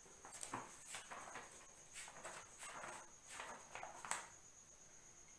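Paper rustling: a string of short irregular rustles and flicks as sheets of notebook paper are handled and turned, stopping about four seconds in. A faint steady high-pitched tone runs underneath.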